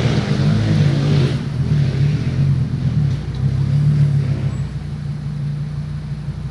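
Fiat Marea 2.4's five-cylinder engine running while driving, a steady low drone. Other traffic noise rises over it in the first second or so, and the engine eases off a little about two-thirds of the way through.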